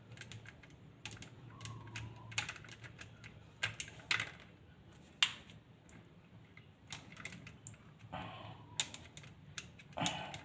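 Irregular light clicks and snips of two pairs of pliers working electrical wires at a plastic junction box.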